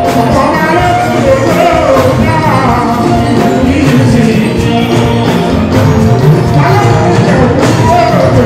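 Live fuji music, loud and continuous: a man's voice singing through a microphone over the band.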